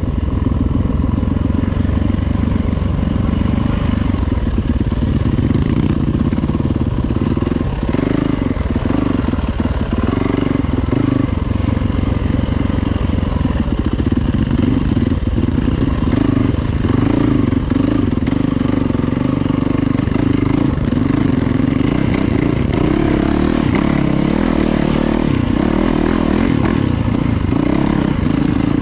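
Yamaha YZ450FX single-cylinder four-stroke dirt bike engine running steadily at low revs while being ridden, the revs wavering a little with the throttle.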